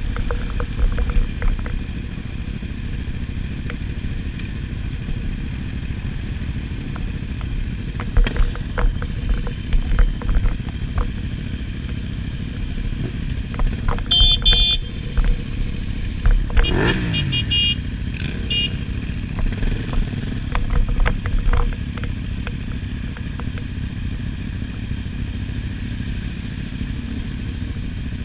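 Motorcycle engines idling steadily while the bikes wait at the lights, with a few short swells in engine sound around the middle and some brief high-pitched squeaks a little past the middle.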